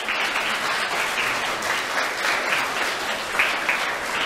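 An audience applauding, the clapping starting suddenly and holding steady.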